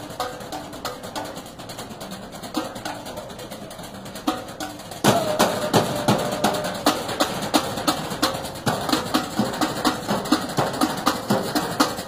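Trash-can percussion: sticks drumming a fast rhythm on galvanized metal trash cans, with sharp, ringing metallic hits. It gets louder and busier about five seconds in.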